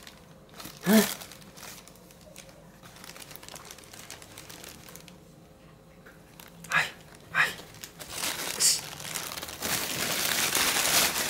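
Thin plastic grocery bag crinkling and rustling as a kitten rummages inside it, with two sharp crackles about seven seconds in and rustling that grows louder and steadier from about eight seconds on. A short vocal sound about a second in.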